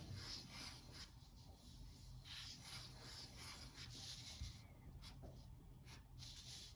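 Pencil strokes scratching on paper, faint and irregular, as a drawing is sketched.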